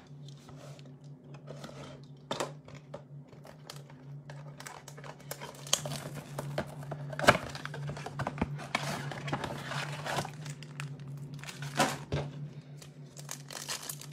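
Cardboard blaster box of Panini Select basketball cards being opened and its foil card packs handled, a crinkling and crackling with a few sharp snaps. A steady low hum runs underneath.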